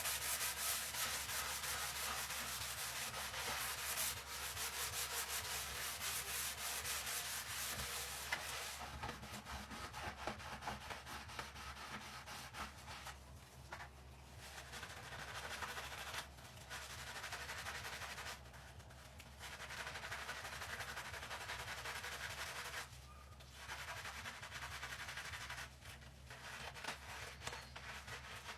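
A kitchen sink being scrubbed: rapid back-and-forth rubbing strokes, loudest in the first third, then lighter scrubbing broken by a few short pauses.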